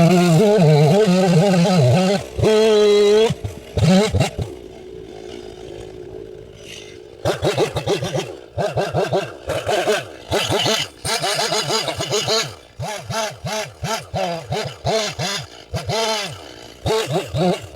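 Stihl chainsaw running at high revs, its pitch wavering under load while cutting firewood. About four seconds in it drops back to a quieter idle for a few seconds, then revs up and down in rapid repeated surges.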